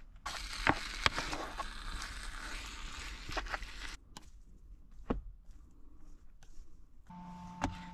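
Food sizzling in an electric cooking pan for a few seconds, cutting off abruptly, then soft scraping and clicking of a plastic serving spoon scooping rice out of a small rice cooker. A steady hum starts near the end.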